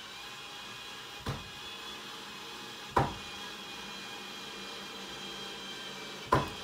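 Three sharp knocks on wood, the first lighter, the second and third louder, at uneven spacing, over a steady hiss.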